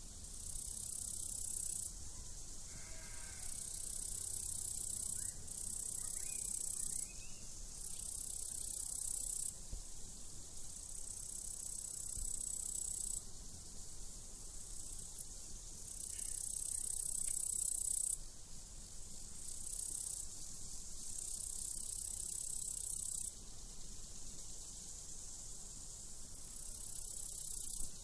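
Crickets chirping in long high-pitched trills that stop and start again every few seconds, with a sheep bleating faintly about three seconds in.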